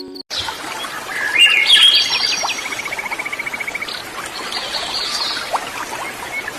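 Songbirds chirping and singing over a steady rushing hiss, with a fast, even trill of about ten notes a second in the middle. Soft music cuts off just after the start.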